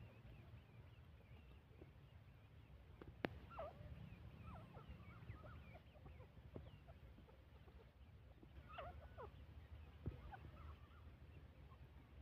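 Faint, soft, short chirping calls from foraging francolin (teetar) hens, scattered through, with small clusters of notes about three and a half seconds in and again near nine seconds.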